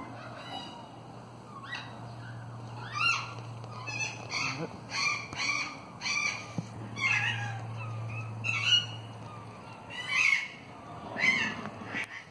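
A series of short, pitched animal calls, roughly one every half second to a second from about three seconds in, over a steady hum that stops near the end.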